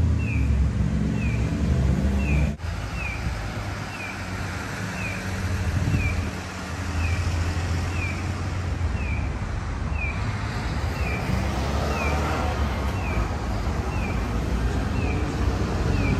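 Street traffic with car and bus engines running, under a steady run of short falling electronic chirps, about two a second, typical of a Japanese pedestrian crossing signal.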